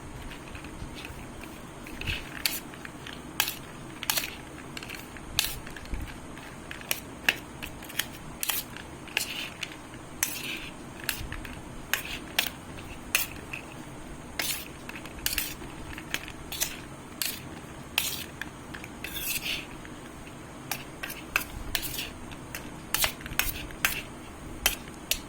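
A spoon clinking and scraping against a bowl, about one or two knocks a second, as a puffed rice snack with potato, chickpeas and onion is tossed, with a light dry rustle of the puffed rice between the knocks.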